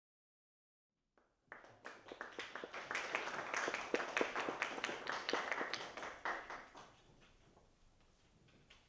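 Small audience applauding. It starts about a second in and dies away after about six seconds.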